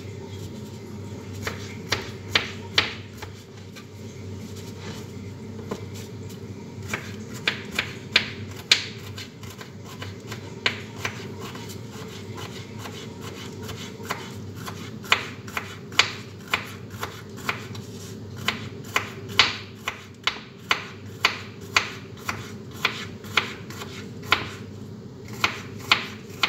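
Knife slicing bitter gourd (ampalaya) on a cutting board: sharp taps of the blade striking the board, irregular and in short runs, then a steadier string of one or two cuts a second over a low steady hum.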